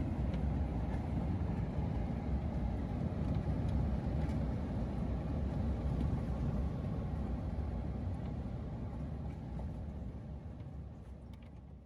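Steady low rumble of a vehicle on the move, like road noise in a car, fading out over the last few seconds.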